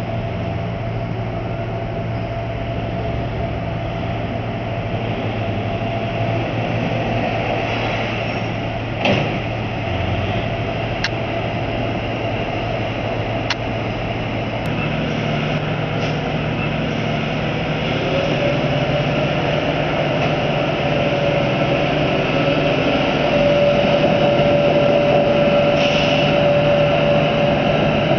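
Heavy diesel engines at a ro-ro freight dock running with a steady low drone. There is a sharp knock about a third of the way in, and past the halfway point a new steady engine note joins as the drone grows a little louder.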